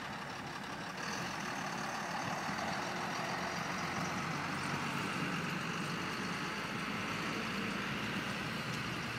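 A truck engine idling steadily.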